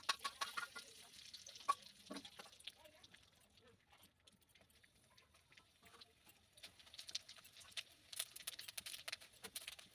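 Dried red chillies, bay leaves and panch phoron crackling and sizzling in hot hilsa oil in a wok, the tempering stage of the dish. The fine crackle is densest at the start and again in the last few seconds.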